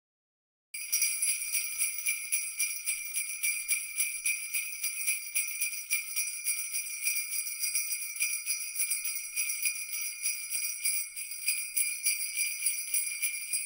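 Sleigh bells jingling in a fast, continuous shake, starting under a second in.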